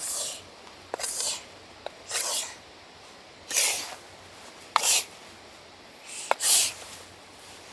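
Repeated short scraping or rasping strokes, about one a second, several beginning with a sharp click.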